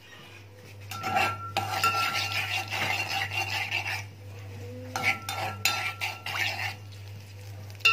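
Metal spoon stirring and scraping chopped garlic frying in oil in an aluminium pot, the metal ringing as it scrapes. It comes in two bouts, one from about a second in to four seconds and a shorter one near five seconds, over a steady low hum.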